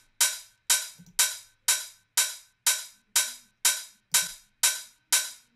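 Roland TR-909 open hi-hat sample playing a steady pattern, about two hits a second. Each hit is a bright hiss that dies away quickly.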